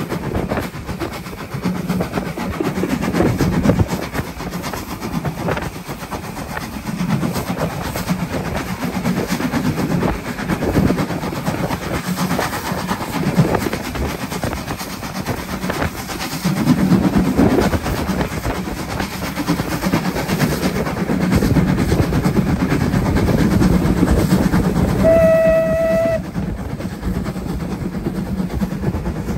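Steam-hauled train running, with a steady rumble and rattle of wheels and carriages on the track. Near the end a locomotive whistle gives one short blast of about a second.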